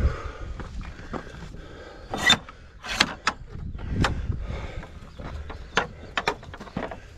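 Gravel bike clattering over a rough track: irregular sharp clacks and knocks from the bike and its mounts over a low rumble of tyres and wind.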